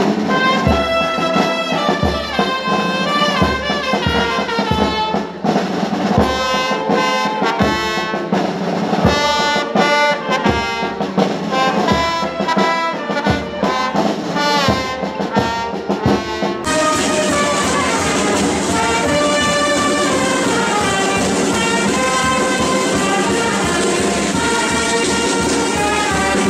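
Brass band music: trumpets and trombones playing a tune over a steady drum beat. About two-thirds of the way through the sound changes abruptly to a denser, more even mix, with the band still playing.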